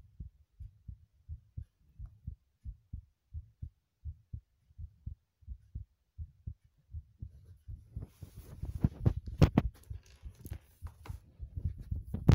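Heartbeat: a steady run of short, low thumps, about three a second. About eight seconds in, louder, harsher thumps with a hiss take over.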